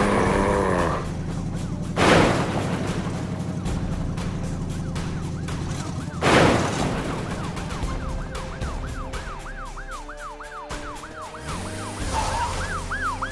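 Cartoon chase sound effects: loud crashes of scattering debris at the start, about two seconds in and about six seconds in, then from about seven seconds on a police car siren sweeping up and down in quick repeated cycles, over background music.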